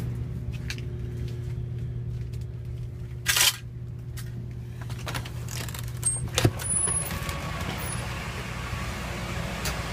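Steady low machine hum throughout, with a short burst of noise about three seconds in and a sharp knock about six and a half seconds in.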